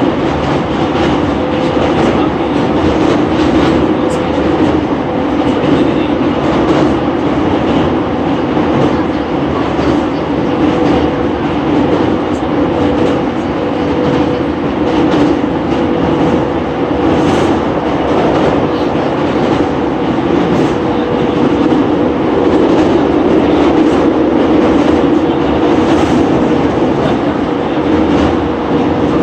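Interior running sound of a JR East E231 series 800-subseries commuter train at steady speed: an even rumble of wheels on rail with a faint steady tone running through it.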